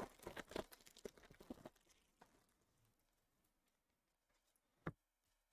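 Foil wrapper of a baseball card pack crinkling as the stack of cards is slid out, fading away under two seconds in. Then near silence, broken by a single sharp click near the end.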